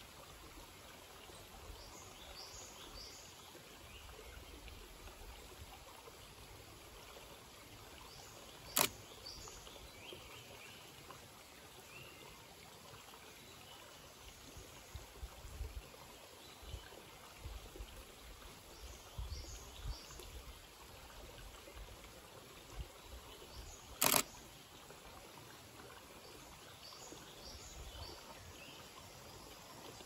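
Quiet forest ambience: a steady faint hiss with distant birds giving short high chirps in small clusters now and then. Two sharp clicks stand out, one about 9 seconds in and a slightly longer one about 24 seconds in.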